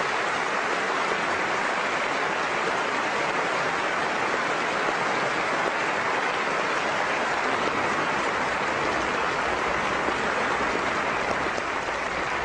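A large audience applauding: dense, steady clapping.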